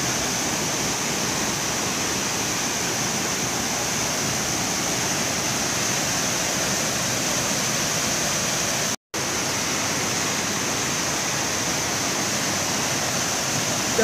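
Third waterfall of the Rufabgo stream, heard close up as a steady rush of falling water. The sound cuts out completely for a split second about nine seconds in.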